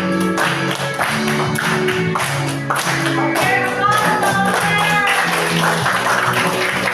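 Music with a steady beat over a bass line of held notes; a wavering melody line, voice or instrument, comes in about three and a half seconds in.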